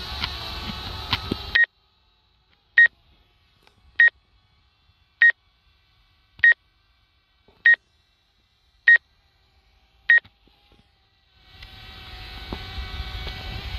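Short electronic warning beeps, about eight of them, evenly spaced a little over a second apart, with the background otherwise silent between them. A steady whirring hum with many tones is heard before the beeps start and comes back near the end.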